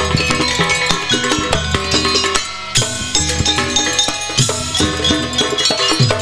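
Live Banyuwangi gandrung ensemble music: kendang drums beat a busy rhythm over pitched percussion. It thins briefly about two and a half seconds in, then comes back with strong accents.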